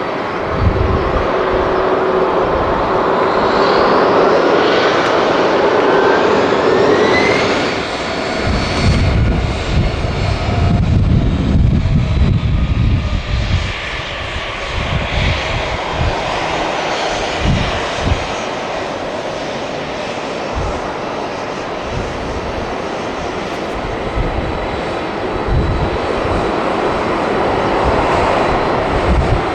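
Boeing 767-300ER jet engines at high power: a rising whine a few seconds in, then a deep, uneven roar from about eight seconds on, as heard during a takeoff.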